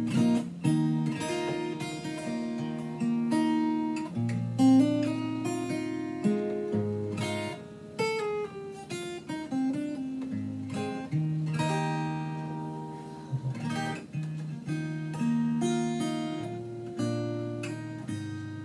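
Fender DG60CE steel-string acoustic guitar with a capo on the neck, strummed in a steady run of chords, each struck and left to ring.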